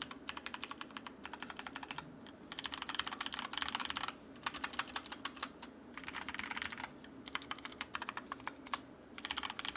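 Typing on a DIERYA DK63 60% mechanical keyboard with brown tactile switches: quick runs of key clicks, broken by short pauses about two, four and nine seconds in.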